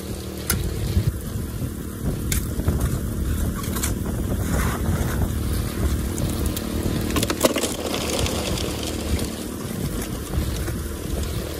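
Small engine of a highbanker's water pump running steadily, with water washing through the sluice box and a few sharp clicks of gravel.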